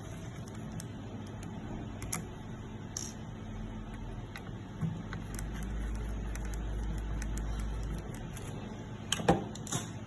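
Small scattered clicks and taps of parts and tools being handled during a fusion splicer repair, over a steady low hum, with a low rumble in the middle and two sharper clicks near the end.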